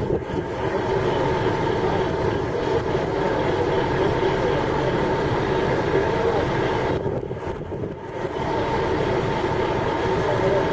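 Steady mechanical running of the machinery shunting the unfired steam locomotive E2 1180: a continuous rumble with a few steady tones over it, easing briefly about seven seconds in.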